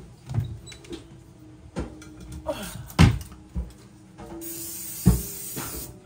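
Kitchen handling sounds: several knocks and thumps of doors shutting and things being set down, the loudest about three seconds in, over a faint steady hum, with a hiss lasting about a second and a half near the end.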